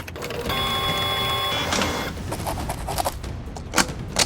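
A small machine whirs with a steady, several-toned whine for about a second and a half. It is followed by a string of sharp clicks and taps.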